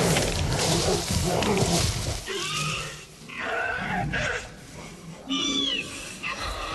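Velociraptors tearing into their food: about two seconds of loud snarling and thrashing, then several high, wavering shrieks, the loudest about five seconds in. These are film sound-effect creature calls.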